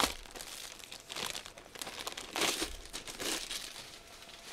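Clear plastic wrapping crinkling as it is pulled off a rolled diamond painting canvas, in several bursts, loudest about two and a half seconds in and quieter near the end.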